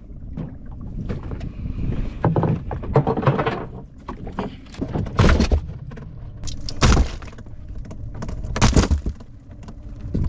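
Small fishing boat at sea: a low steady rumble with three loud splashes against the hull, about five, seven and nine seconds in.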